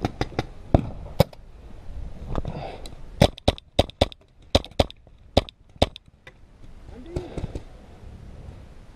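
Paintball markers firing: scattered sharp pops in two flurries, one around the first second and a denser one from about three to six seconds in.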